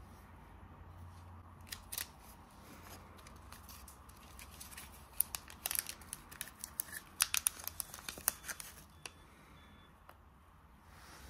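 Fluted paper liner and thin clear plastic cup crinkling and crackling as they are peeled off a soft mochi daifuku: a couple of crackles about two seconds in, then a quick run of sharp crackles in the middle, stopping near the end.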